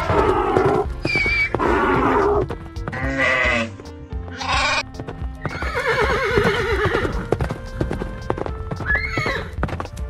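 Upbeat background music with a steady beat, and over it a string of short farm-animal call sound effects, each lasting under a second.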